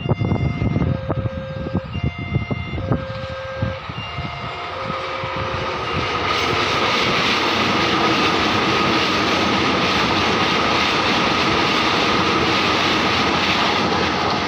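Railway level-crossing alarm sounding its pattern of short stepped electronic tones. Then a train passes over the crossing, its wheels on the rails making a loud steady rumble from about six seconds in.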